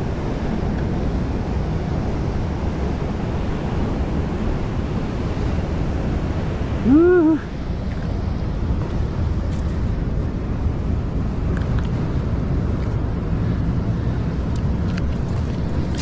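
Surf washing over coastal rocks with wind on the microphone, a steady rushing noise. About seven seconds in, a short pitched sound rises and falls for half a second.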